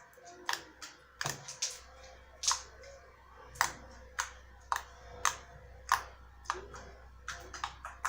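Thick homemade slime being squeezed and worked in the hands, giving a string of sharp, wet clicks and pops at irregular intervals, about two a second.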